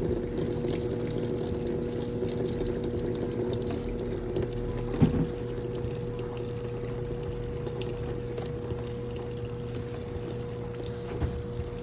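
Brastemp Clean washing machine moving water: a pump hums steadily under the rush of water, and one knock comes about five seconds in.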